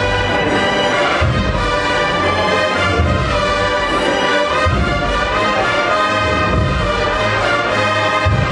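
An agrupación musical, a brass-and-drum band of cornets, trumpets and trombones with drums, playing a processional march.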